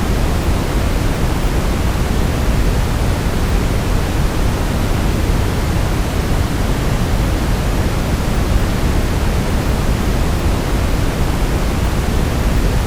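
Steady brown noise: an even, unchanging rush that is strongest in the bass.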